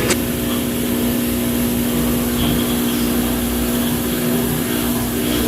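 A machine motor running with a steady, even hum over a noisy whir.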